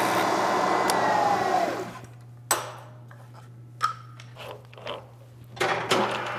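Vertical milling machine's motor and spindle running with a whine, then spinning down and stopping about two seconds in with a slight fall in pitch. A few sharp clicks follow as the machine is handled, over a steady low hum, and a louder noise starts near the end.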